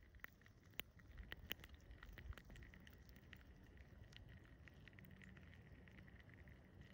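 Near silence, with faint, irregular light clicks and ticks, more of them in the first couple of seconds, over a faint steady high tone.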